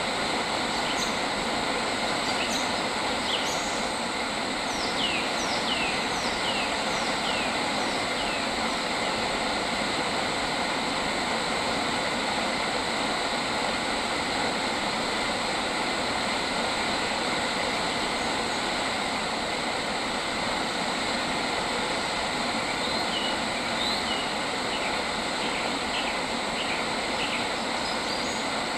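Birds calling in runs of quick, downward-sweeping chirps, a cluster in the first third and another near the end. They sit over a steady, dense background hiss with thin steady high tones.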